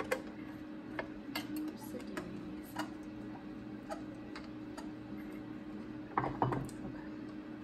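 Irregular light clicks and taps of metal parts being handled as the top cover of a vintage Kenmore sewing machine is taken off, with a louder handling noise about six seconds in, over a steady low hum.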